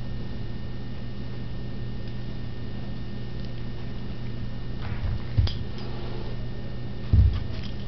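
Steady low hum of room tone, with a few faint knocks about five seconds in and one louder thump near the end.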